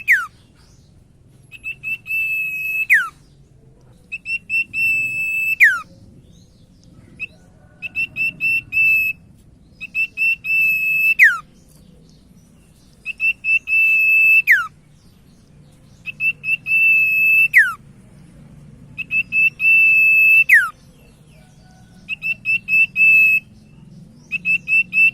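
Common iora (sirtu, cipoh) singing: a held, rapidly trilled whistle that ends in a sharp downward slur, repeated about every three seconds.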